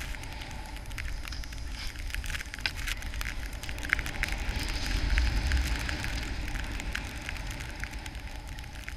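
Snowboard sliding through fresh powder snow: a steady hiss scattered with small crackling clicks. Wind rumbles on the pole-mounted camera's microphone, heaviest about five seconds in.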